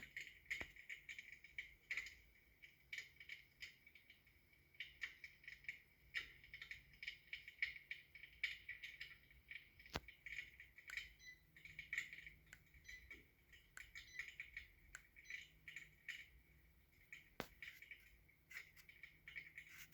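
Faint, irregular crackling and clicking from an LED electric fireplace hearth running with its flame effect turned up, scattered unevenly with a few sharper clicks.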